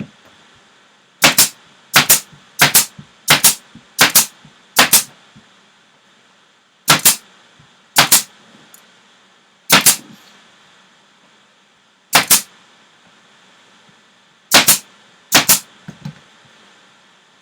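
Staple gun firing staples through fabric into a wooden valance board, about a dozen sharp shots: six in quick succession, then the rest spaced out one at a time.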